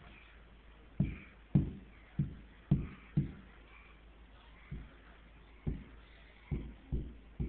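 A toddler's hand slapping against a wall: about ten dull thumps at an uneven pace, the loudest in the first three seconds.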